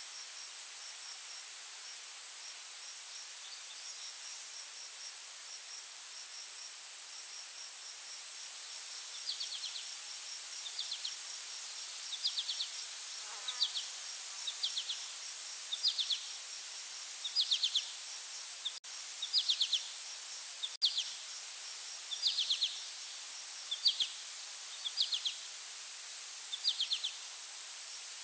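Insects: a steady high-pitched buzz, joined from about nine seconds in by short pulsed chirps repeating roughly once a second.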